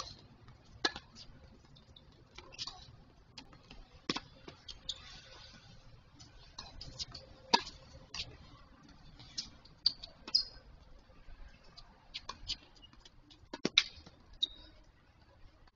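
Tennis rally on a hard court: a series of sharp pops from rackets striking the ball and the ball bouncing, irregularly spaced. The loudest pop comes about seven and a half seconds in, with a quick pair near the end.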